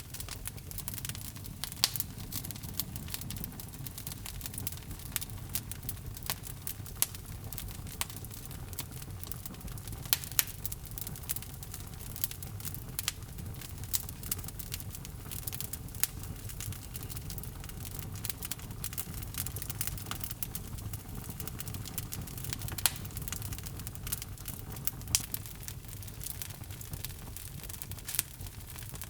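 Wood logs burning in a fireplace, crackling and popping irregularly over a low steady rumble of the flames, with a few sharper pops standing out.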